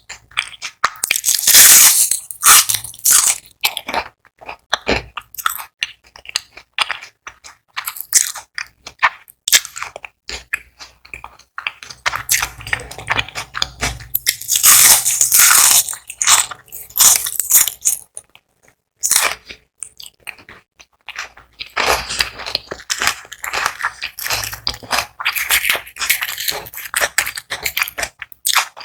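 Close-miked biting, crunching and chewing of crispy battered onion rings, coming in bursts of loud crackling crunches with short pauses between mouthfuls.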